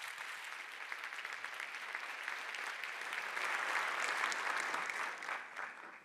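Audience applauding. The clapping swells about halfway through and dies away near the end.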